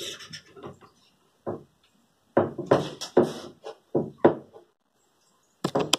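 Irregular short bursts of scratching and rustling close to the microphone, from handling the screen mesh and fabric on the stretching jig. There is a run of several bursts in the middle and a final pair near the end, with quiet gaps between.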